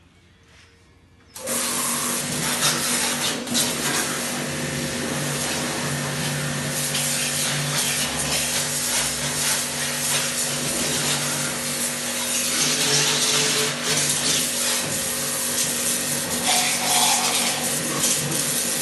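Electric high-pressure washer with a 2 HP motor starts abruptly about a second in and runs steadily, its motor hum under the loud hiss of the high-pressure water jet spraying a car tyre and wheel.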